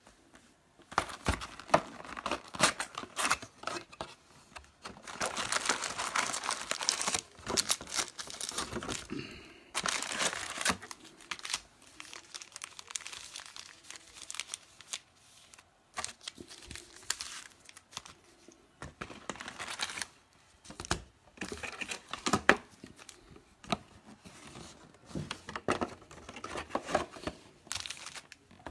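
Plastic shrink wrap crinkling and a 2018 Donruss football hobby box being torn open, then its foil card packs crinkling as they are pulled out and stacked, in irregular bursts of rustling and tearing with small clicks.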